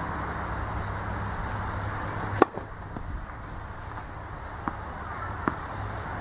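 Tennis racket striking a ball once, a sharp loud pop about two and a half seconds in. Two fainter knocks follow near the end, over a steady background rumble.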